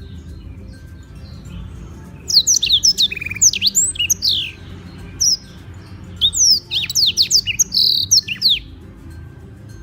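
Black-throated canary singing two bursts of fast, varied song made of quick downward-sweeping whistles with a short buzzy trill. The first burst starts about two seconds in and the second about six seconds in, over a steady low hum.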